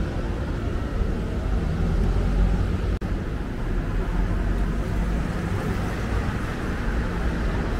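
Tokyo street traffic heard from a moving bicycle: a steady low rumble of vehicles and road noise. The sound drops out for an instant about three seconds in.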